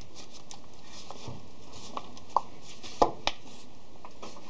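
Light clicks and knocks of a reciprocating saw's plastic housing half being fitted and pressed into place by hand, with a few sharper knocks between two and a half and three and a half seconds in.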